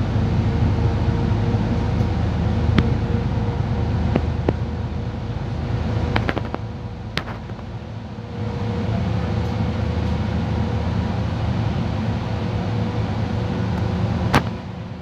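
Inside a Solaris Urbino 12 city bus on the move: a steady engine drone and road noise with a thin steady whine, broken by scattered sharp clicks and rattles. The engine sound eases off briefly about halfway and again near the end, just after a loud click.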